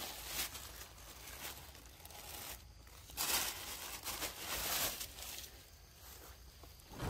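Bursts of dry crinkling rustle, the two loudest a little after three seconds and around four and a half seconds in.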